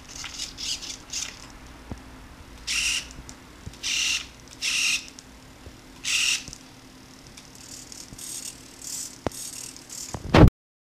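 Hobby servos of a robot arm whirring in short bursts as the arm and gripper move, four louder bursts in the middle, over a faint steady hum. A sharp knock comes near the end, then the sound cuts off.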